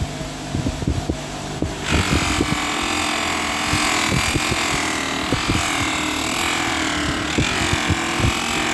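A buffing machine starts about two seconds in and whines steadily. Its pitch dips and recovers as the cast bronze anvil is pressed against the polishing wheel. Before it starts there is a fan-like hiss with light clicks.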